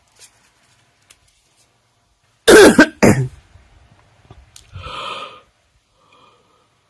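A person coughs loudly twice in quick succession, then makes a softer breathy sound a couple of seconds later.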